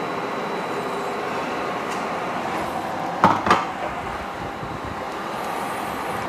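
Green onion pancake frying in an aluminium pan on an induction cooktop: a steady, even noise, broken by two sharp knocks a quarter second apart about three seconds in.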